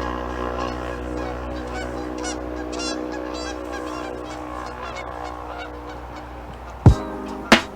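Geese honking over a steady droning tone, then two loud sharp beats near the end as a music track kicks in.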